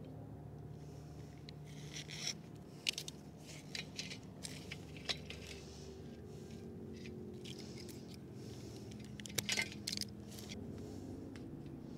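Light clicks, clinks and scrapes of hands working a pull-start recoil starter while a new starter rope is fitted and knotted. The noises are scattered and come in a quick cluster a little before the end, over a faint steady low hum.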